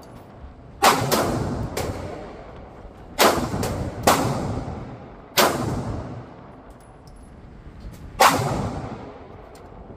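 Pistol shots on an indoor range, fired singly at uneven intervals of about one to three seconds, each sharp crack followed by a long echoing decay off the range walls. About half a dozen loud shots, with a couple of fainter ones between them.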